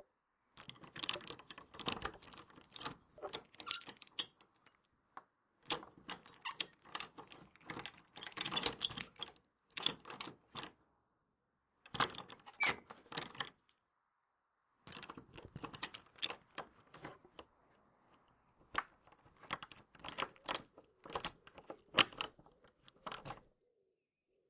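Old padlock being handled: quick runs of metallic clicks and rattles in four bursts, with short pauses between them.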